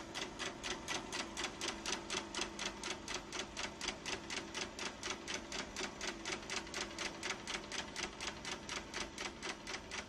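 Film projector running, its mechanism clicking evenly at about five clicks a second over a faint steady hum.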